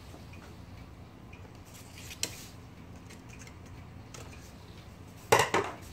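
Small metal clicks from typewriter parts and tools being handled during disassembly: one sharp click about two seconds in, then a louder short clatter of a few knocks near the end.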